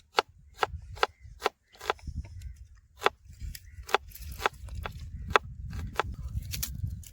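A knife chopping vegetables on a cutting board: a run of sharp knocks, roughly two a second with a brief pause partway through, over a low rumble.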